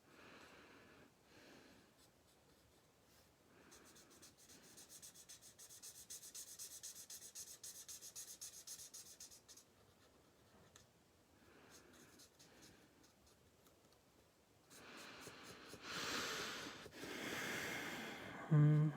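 Marker nib rubbing over cardstock while colouring in a stamped image, with a spell of fast back-and-forth strokes in the middle. Near the end a louder rustle, then a short low-pitched sound.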